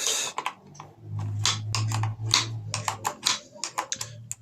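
An 8 mm wrench working the blade-clamp bolts of an electric planer: a run of quick metallic clicks and taps as the bolts are loosened. A low steady hum sounds for about two seconds in the middle.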